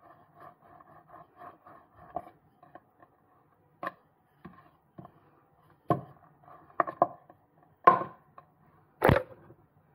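Wooden rolling pin rolling dough out on a wooden pastry board: soft repeated rolling strokes at first, then several sharper wood-on-wood knocks as the pin is lifted and set down, the loudest near the end.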